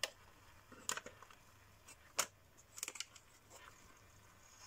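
A few separate light clicks and knocks as an AA battery is pressed into the battery holder of a wooden clock model and handled in place, the sharpest about two seconds in.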